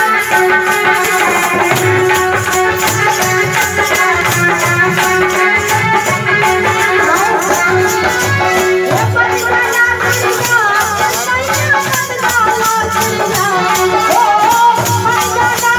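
Live Indian folk devotional music: a harmonium plays over a held drone note while a shaken rattle keeps a fast, even beat. A singer's voice comes in about halfway through.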